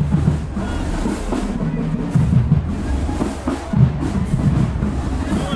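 Marching band drumline playing a cadence, with heavy bass drum hits over the snares and other drums.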